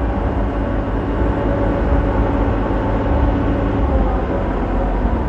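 Friendship boat's engine running at a steady cruise, a low, even drone heard from on board.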